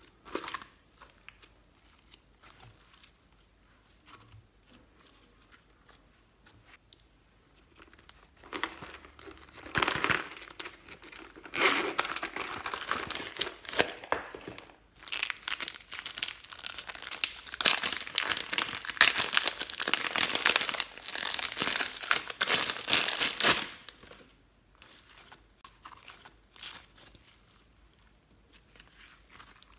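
Zip-lock plastic bag of orange glitter slime crinkling loudly and densely as it is handled and squeezed, starting about a third of the way in and stopping a few seconds before the end. Before that there are only faint soft squishes and clicks of slime being kneaded in a glass dish.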